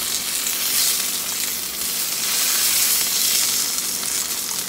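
Salmon sizzling on the hot plate of a small electric contact grill, a steady crackling hiss.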